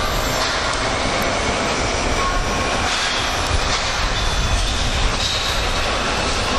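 Steady mechanical running noise with a low rumble from a bridge-launching gantry's chain pulling unit hauling the launching chain, with a few brief high metallic squeals.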